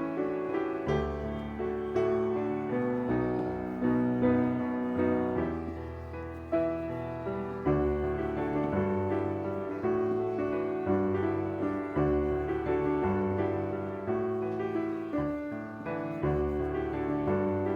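Background piano music: gentle, steady notes struck in an even rhythm.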